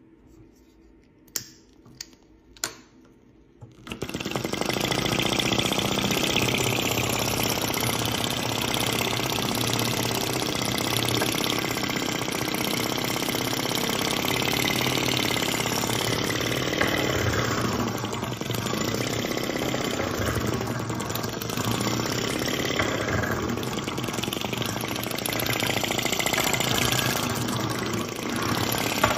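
Three sharp lighter clicks, then from about four seconds in a miniature metal Stirling engine tractor runs with a fast, steady mechanical clatter.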